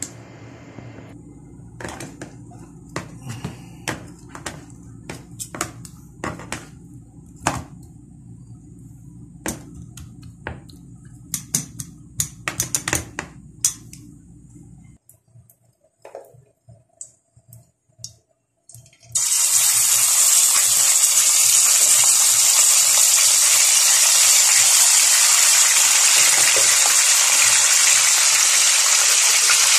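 Cooking oil heating in a frying pan, with scattered sharp pops and crackles over a low hum. About 19 seconds in, talakitok (trevally) steaks go into the hot oil and a loud, steady sizzle of frying takes over.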